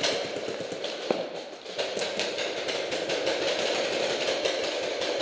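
Paintball markers firing rapid shots from many players at once, echoing through a large indoor hall; the shots thin out briefly about a second in, then come thick and continuous.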